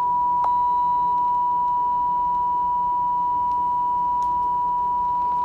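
Television test tone that goes with colour bars, the off-air signal at the end of a broadcast: one steady, unbroken beep at a single pitch. A faint click about half a second in.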